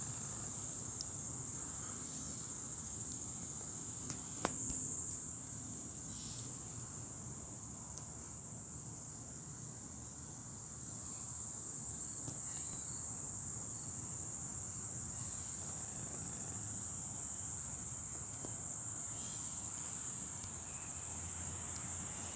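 A steady, high-pitched chorus of insects trilling without a break. A single brief click comes about four and a half seconds in.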